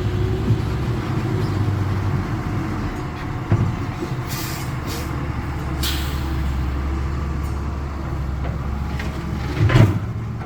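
Heavy diesel engine of earthmoving equipment running steadily, with a couple of short hisses in the middle and a knock and a heavier thump near the end.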